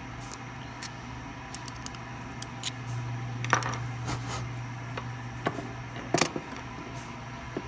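Scattered light metallic clicks and taps from small steel tools and parts being handled against the snare stand's threaded hole, two of them sharper than the rest, over a steady low hum.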